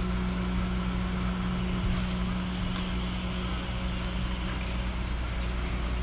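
A steady low mechanical hum from a running motor: one constant tone over a low rumble, with a few faint ticks.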